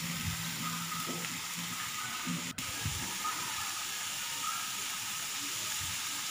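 Shredded cabbage and mustard greens sizzling in oil in a metal wok, a steady hiss, with a few soft scrapes of a metal slotted spoon in the first half. The sound cuts out for an instant about halfway through.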